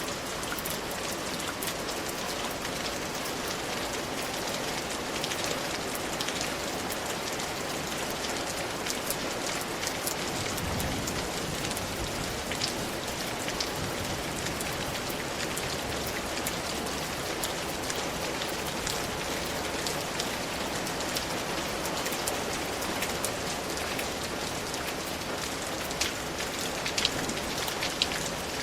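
Steady rain falling, an even hiss with many individual drop hits. A few sharper, louder drop hits come near the end.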